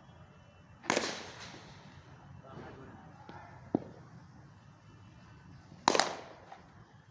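Cricket bat striking the ball in two back-foot punch shots: two sharp cracks about five seconds apart, each trailing off briefly, with a fainter single knock between them.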